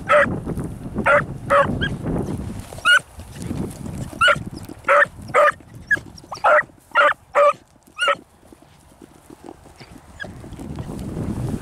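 Beagle barking in the brush: about a dozen short, sharp barks, in ones and close pairs, that stop about eight seconds in.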